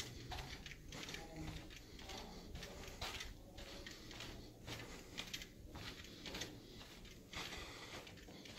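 Soft footsteps on a carpeted floor and rustling handling noise from a handheld camera while walking, about one or two steps a second, over a faint steady low hum.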